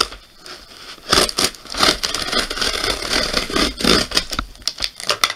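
Cardboard shipping box being torn open by hand: tape and cardboard tearing and scraping, with crackling and crinkling of packing material and many sharp clicks, busiest from about a second in.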